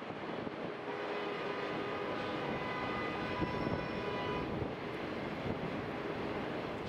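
Passenger coaches rolling past on the rails: a steady rumble and rush of wheels on track, with a thin whine heard for a few seconds in the middle.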